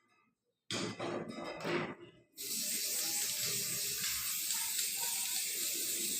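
Aerosol spray can spraying: a short uneven burst about a second in, then one long steady hiss lasting about five seconds.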